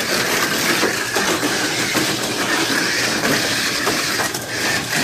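Tamiya Mini 4WD cars with Light-Dash motors racing on a plastic multi-lane track: a steady high whine of the small electric motors over a continuous rattle and clatter of the cars running along the track and its walls.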